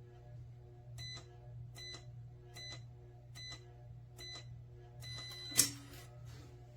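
Electronic keypad of a biometric pistol safe beeping five times, about once a second, as buttons are pressed, then a single sharp, loud clunk.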